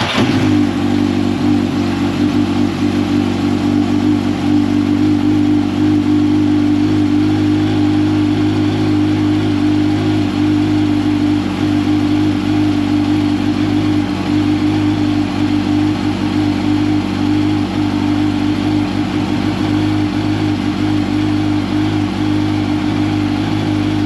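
2005 Yamaha R1's inline-four engine idling steadily, freshly started on new oil after the starter was replaced and the engine put back together.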